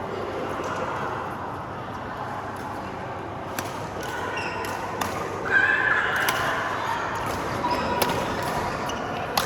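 Badminton rally: a racket striking the shuttlecock with sharp clicks, roughly once a second from about a third of the way in. A short squeal a little past the middle is the loudest sound, over a murmur of voices in the hall.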